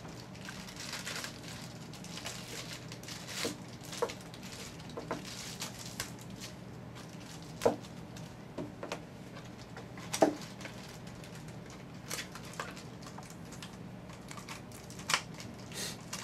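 Plastic packaging crinkling and rustling, with scattered sharp clicks of hard plastic parts being handled, as a Beyblade launcher is unwrapped, over a faint steady low hum.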